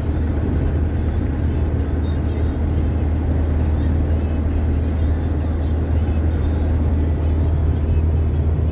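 GAZelle van under way on the road: a steady low drone of engine and road noise.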